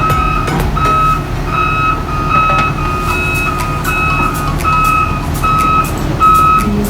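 Excavator travel alarm beeping steadily, a beep about every half second, over the low running of a diesel engine, with occasional clanks.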